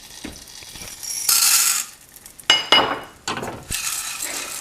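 Metal pan and utensils clattering and clinking as they are handled in a kitchen, with a short rustling hiss partway through and a sharp ringing clink about two and a half seconds in.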